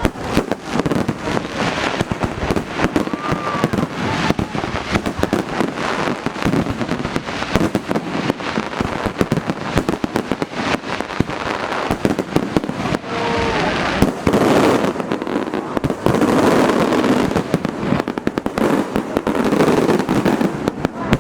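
Fireworks display heard at close range: a continuous barrage of rapid bangs and crackling, with an occasional short whistle.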